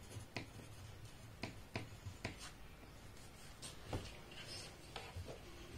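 Pen writing on a paper pattern spread on a table: faint scratching with a dozen or so irregular light ticks of the pen tip, and a soft rustle a little past the middle.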